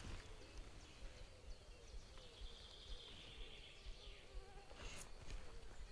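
A flying insect buzzing faintly, its pitch wavering up and down as it moves about, with a higher buzzing sound in the middle.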